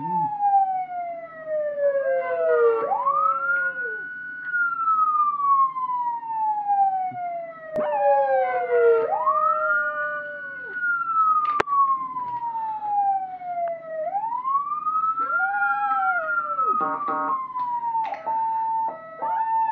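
An emergency-vehicle siren wailing, each cycle a quick rise in pitch and a long slow fall, with a puggle howling along in long arched howls.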